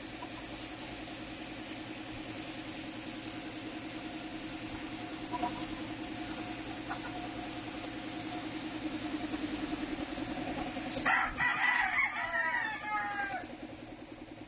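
A rooster crows once, about eleven seconds in, a drawn-out call that falls away at the end. Under it runs a steady mechanical hum.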